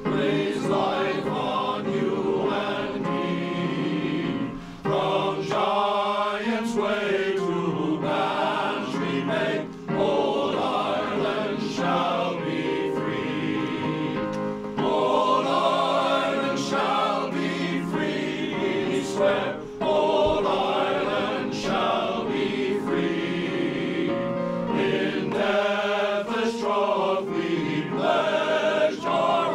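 Men's glee club singing an anthem in harmony, with a few brief breaks between phrases.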